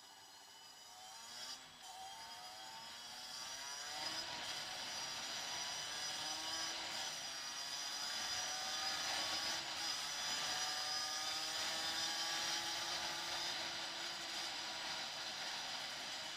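Sport motorcycle engine heard from on board, its note rising and falling several times as the bike pulls away and speeds up through the gears. Wind and road noise build as speed rises.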